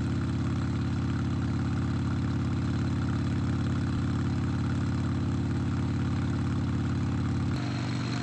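Motorcycle engine running steadily, a low even drone; shortly before the end its tone shifts.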